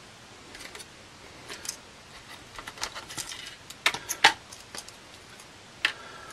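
Hands moving small plastic kit parts and a clear plastic parts box: scattered light clicks, rattles and rustles, with the sharpest clicks about four seconds in and one more near the end.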